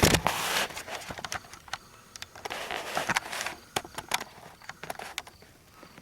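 Footsteps crunching on dry ground, with scattered crackling clicks, growing fainter toward the end.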